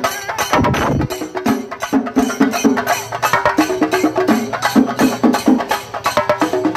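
Kerala chenda drums beaten with sticks in a fast, steady rhythm, a festival percussion ensemble playing.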